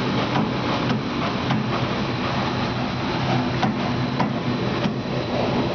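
A running machine's steady hum with irregular sharp knocks from loose laminations, every half second to a second or so.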